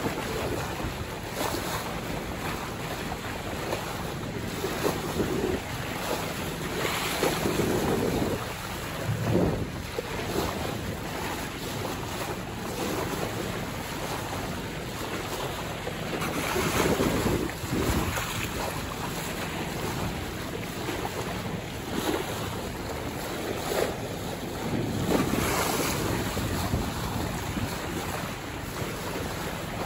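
Wind buffeting the microphone and waves washing past a sailboat under way at sea, a steady rush that swells louder in surges about three times.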